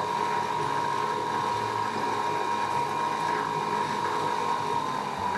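Electric mixer running steadily, beating butter and sugar for cupcake batter, with a steady motor whine that dips slightly in pitch near the end.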